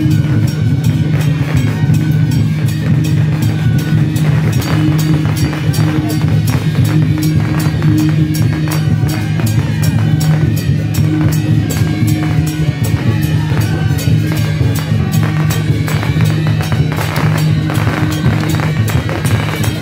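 Loud music with drums and percussion striking continuously over a steady low drone.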